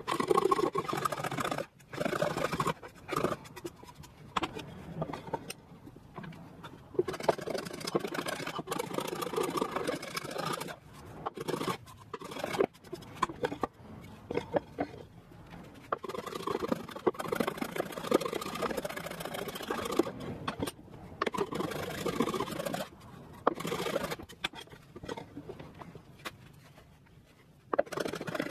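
Brass-and-steel infill mitre plane cutting shavings from a thin wooden board: runs of rasping, scraping strokes with sharp clicks, broken by short pauses between passes.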